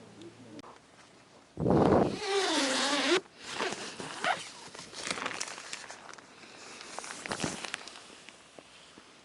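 A zipper pulled open in one long, loud rasp whose pitch wavers with the pull, about a second and a half in, followed by shorter rasps and rustling.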